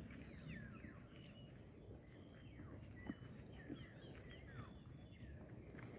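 Faint chirping of birds: many short, quick chirps, mostly falling in pitch, one after another, over a low outdoor rumble.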